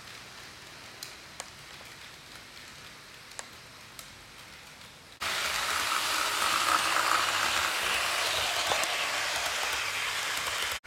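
HO scale model trains running on the track. At first the sound is faint, with a few light clicks. About five seconds in it turns abruptly louder, a steady rolling noise of a model train passing close by.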